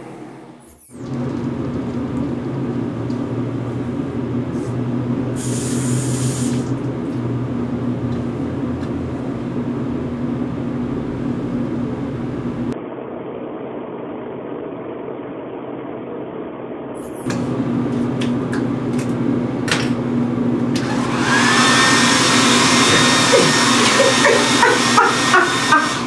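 Handheld hair dryer running: its motor hum and rush of air switch on about a second in and run steadily, turning louder and hissier in the last few seconds.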